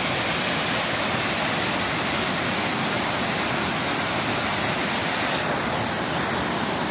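Rain-swollen waterfall pouring after days of heavy storm rain: a steady, loud rush of water.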